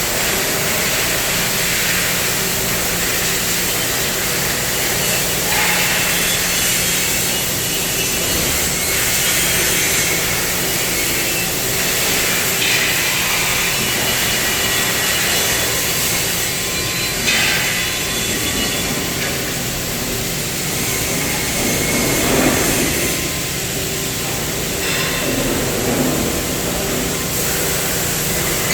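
Steady industrial machine noise, a continuous hiss over a low hum, from a CNC cutting machine at work, with a few brief louder knocks along the way.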